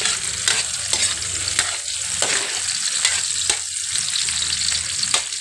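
Food sizzling steadily in hot oil in a pan while being stirred, with frequent short clicks of the utensil striking the pan.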